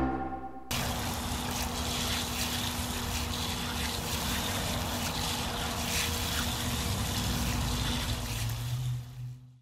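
Garden hose spray nozzle hissing steadily as its jet spatters onto cement hypertufa pots and wet concrete, cutting off near the end. The pots are being rinsed to wash down their alkaline cement surface.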